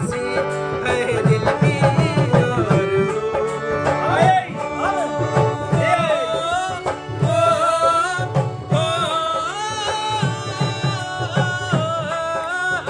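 Male voices singing a Saraiki dohray folk song, with long ornamented lines that slide in pitch, over a steady hand-drum beat.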